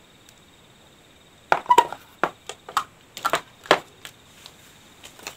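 Chess pieces knocking and clacking on the board as a knight is moved from square to square and captured pieces are picked off, a string of short, sharp knocks in small clusters starting about one and a half seconds in.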